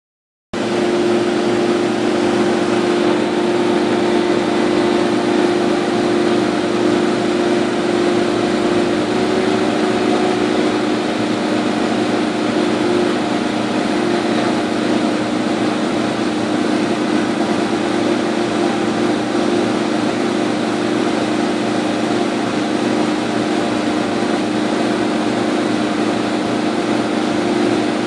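Laser cutter running as it cuts 1/2" birch: a steady machine whir with a constant low hum.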